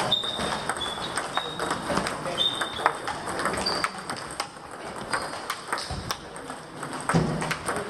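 Table tennis balls clicking irregularly off bats and tables during drill rallies, a few short high squeaks among them.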